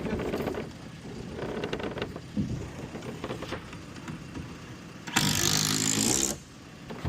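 A machine's engine running steadily at a low level. About five seconds in, a loud hissing, buzzing burst lasts a little over a second, then cuts off.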